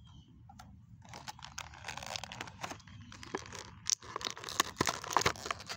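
Toy packaging crinkling and tearing as the box is opened, an irregular crackling with many small clicks that starts about a second in and grows busier.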